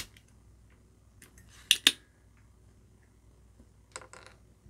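Sharp clicks of a cheap desoldering iron's spring-loaded suction plunger snapping back to suck molten solder from a capacitor's joints. There is one click at the start, a loud pair close together a little under 2 seconds in, and a fainter pair near the end.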